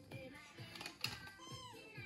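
Background music with a toddler's high-pitched giggling squeals over it, one bending squeal near the end, and a sharp tap about a second in.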